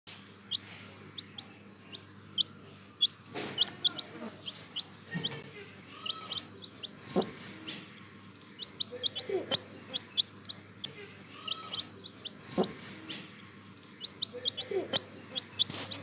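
Baby chicks peeping: short, high-pitched peeps in quick runs of several a second, with brief pauses between runs. A few brief knocks are mixed in.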